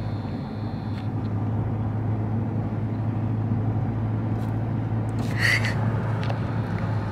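Steady engine and road hum inside the cabin of a moving car. A brief high-pitched squeak comes about five and a half seconds in.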